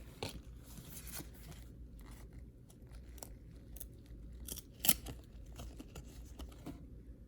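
Trading cards being handled and flipped one by one: a run of soft swishes and light snaps of card stock, with one sharper snap about five seconds in.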